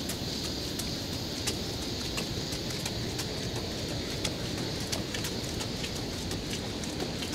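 Steady outdoor city-street rumble on a rainy day, with scattered sharp ticks at irregular moments throughout.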